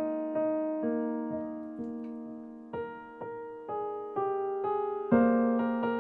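Background music: a gentle piano melody, single notes struck about every half second and left to ring and fade.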